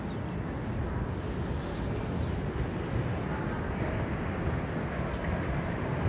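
Outdoor airport ambience: a steady low rumble of distant vehicles, with a few faint high falling sounds about two to three seconds in.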